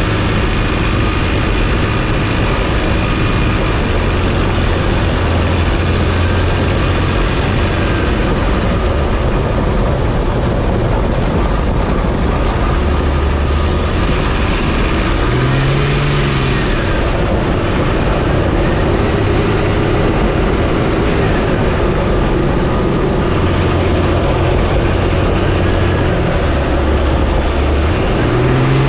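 Lifted pickup truck on the move: a steady rumble of engine and tyre noise that rises and falls a little with load.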